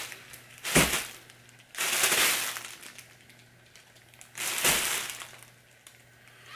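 Clear plastic poly bag crinkling as it is handled and turned over, in three separate bursts of rustling, the first short and sharp.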